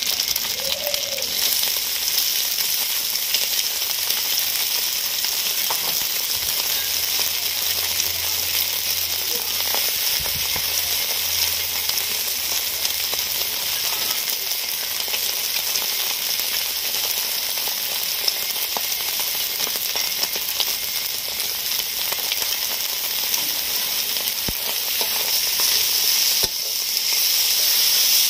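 Egg and glass noodles frying in hot oil in a steel wok, a steady sizzling hiss, stirred and tossed with a metal spatula. The sizzle gets louder near the end.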